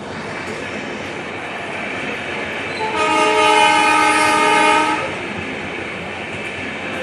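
Steady rolling, rumbling noise, with a loud horn chord of several tones sounding for about two seconds starting about three seconds in.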